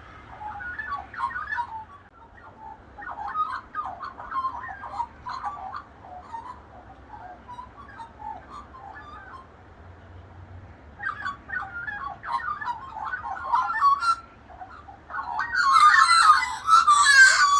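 Australian magpies warbling and carolling in bouts of fluting, bubbling notes, with a lull about two-thirds of the way through and the loudest, fullest burst of song near the end.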